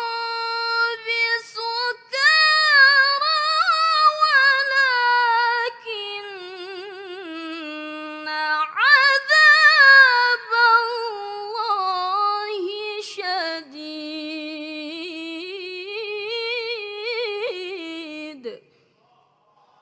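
A teenage girl's voice reciting the Quran in the melodic tilawah (mujawwad) style: one long ornamented phrase with heavy vibrato and wide runs up and down, sweeping up sharply about nine seconds in. The phrase ends with a falling pitch about eighteen and a half seconds in.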